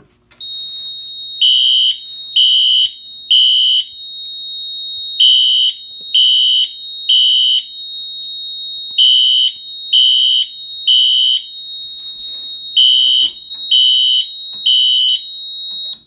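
Fire alarm horns sounding the temporal-3 evacuation pattern, triggered from a manual pull station on an FCI FC-2224 panel: three short high beeps, a pause, then three more, over a continuous steady high tone. Everything cuts off together near the end as the panel is silenced.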